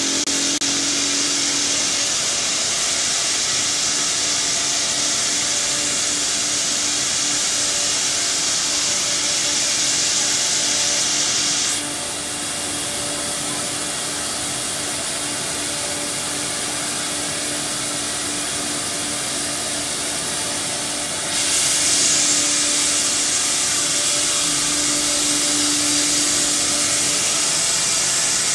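Single-head CNC router running, a steady mechanical noise with a high hiss and a constant hum. The hiss drops away about twelve seconds in and comes back louder around twenty-one seconds.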